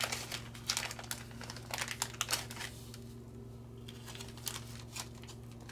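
Plastic crinkling and light clicking as small parts are handled, busiest in the first three seconds, then a few isolated clicks, over a steady low hum.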